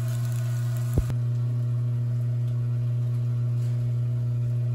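A steady low hum throughout, with gizzard shad faintly sizzling in an oiled frying pan for the first second. A sharp click about a second in, after which the sizzle drops away and only the hum remains.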